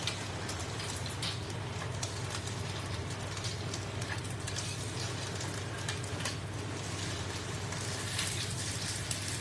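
Bánh xèo batter frying in hot oil in a small pan: a steady sizzle with fine crackling, over a low steady hum.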